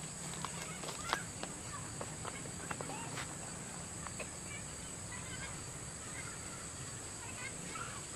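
Quiet outdoor ambience: a steady high hiss, with scattered light clicks and knocks in the first few seconds, the sharpest about a second in. Faint bird chirps come near the end.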